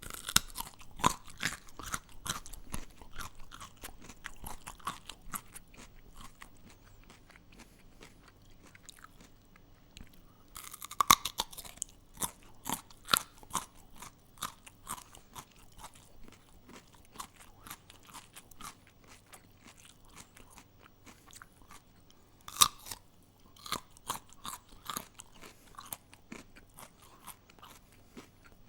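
A raw carrot being bitten and chewed, close up: crisp crunching chews in a run. Two louder bites come about eleven seconds in and again about twenty-two seconds in, each followed by chewing crunches that grow softer as the carrot is ground down.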